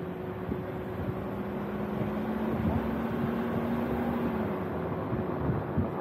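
A motor vehicle on the move: steady engine and road noise with a low hum, one higher engine tone dropping away about four and a half seconds in.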